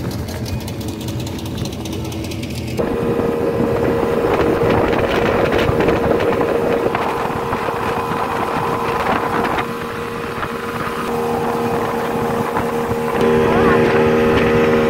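Speedboat's outboard motor running at speed over open water, a steady engine hum over the rush of water. The sound changes abruptly a few times.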